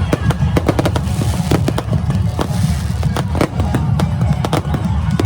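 Fireworks going off: a rapid, irregular string of sharp bangs and cracks, several a second, over a heavy low rumble.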